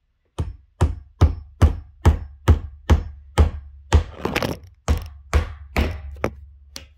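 Hammer driving a nail into the cabinet: about fifteen steady blows, a little over two a second, growing slightly fainter towards the end.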